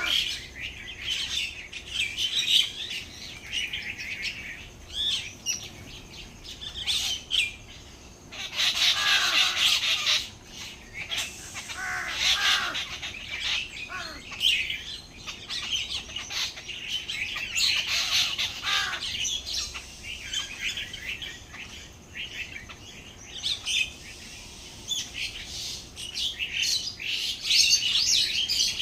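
Many small birds chirping and twittering at once, short overlapping calls throughout, loudest about eight to ten seconds in.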